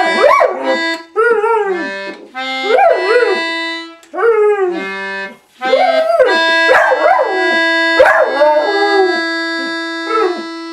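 Australian cattle dog howling in a series of rising-and-falling wails along with a melodica, whose held notes sound under the howls; one long melodica note runs through the second half.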